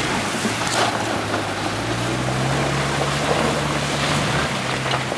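Mitsubishi Pajero's engine working as the SUV crawls up a rocky, muddy stream bed: a steady hum that rises a little in pitch about two seconds in and fades near the end, over a steady hiss.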